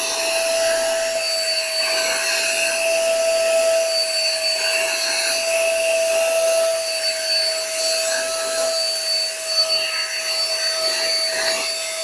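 Handheld vacuum cleaner running steadily with a high motor whine, its nozzle moving over a Labrador's coat. The level wavers a little near the end.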